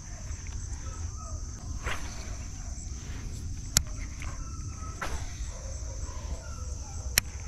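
A steady high-pitched insect chorus, crickets, carries on throughout. Over it come the handling noises of a baitcasting reel and rod being worked, with two sharp clicks about three and a half seconds apart.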